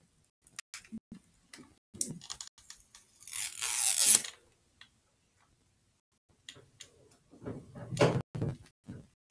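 Clicks and knocks from a plastic CD jewel case being handled. About three seconds in comes a hiss lasting about a second as the clear plastic seal strip is peeled off the case. More clacks and rubbing of the case follow near the end.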